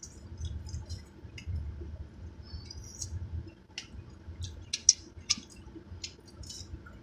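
Close-up eating sounds of someone chewing fried chicken wings: a run of short, wet mouth clicks and lip smacks, sharpest a little before and after five seconds in, over a low steady rumble.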